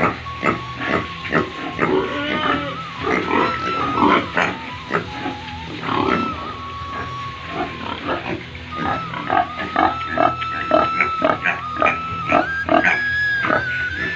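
Pigs grunting and squealing, many short calls in quick succession, over a steady hum.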